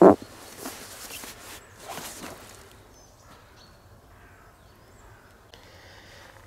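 Footsteps and rustling in dry fallen leaves, beginning with a brief sharp thump, then fading after about two and a half seconds to quiet woodland with a few faint high chirps.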